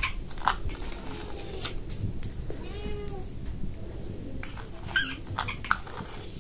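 A cat meowing a few times, each call rising and falling in pitch, mixed with a few sharp clicks.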